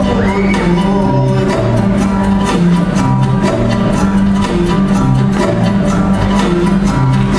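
Show music with a steady beat and a repeating bass line.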